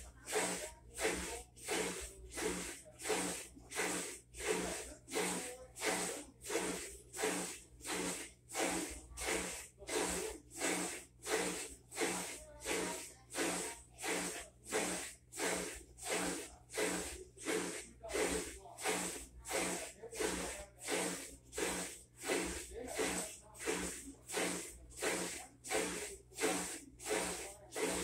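Whirlpool WTW4800XQ2 top-load washer agitating a load, churning the water in regular back-and-forth strokes, about four swishes every three seconds.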